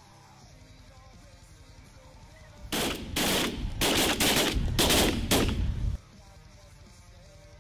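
A rapid volley of shotgun blasts from several hunters firing at snow geese, about seven or eight shots over roughly three seconds starting about a third of the way in, then stopping.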